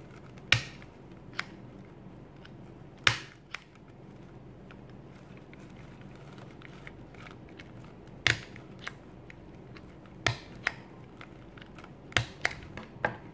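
Small handheld stapler snapping shut through folded fabric petals: about seven sharp clacks a second to a few seconds apart, coming closer together near the end, with a few fainter clicks between them.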